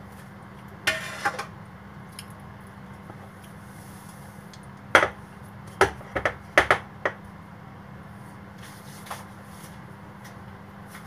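Kitchen utensils and dishes knocking and clinking: a short clatter about a second in, then a run of about six sharp knocks between five and seven seconds in, over a steady low hum.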